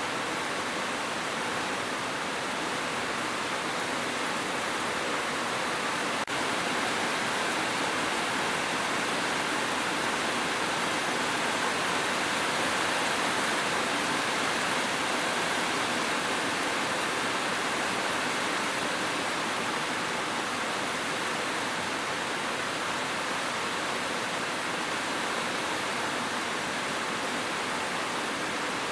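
Steady, even hiss of falling water as in heavy rain, unchanging throughout, with a momentary dip about six seconds in.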